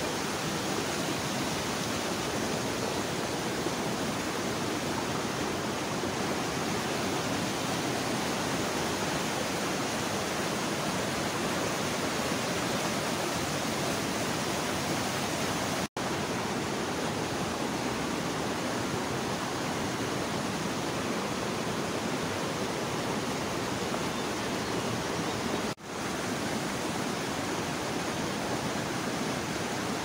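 River rapids and a waterfall: a steady rush of white water that breaks off for an instant about halfway through and dips briefly again near the end.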